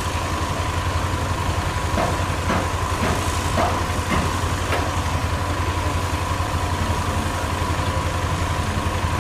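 An engine running steadily at idle with a fast, even pulse and a steady high hum over it.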